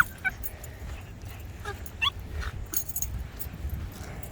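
Dog whining and whimpering in a string of short, high, falling yelps, the sound of an excited dog straining on the leash, over a steady low rumble.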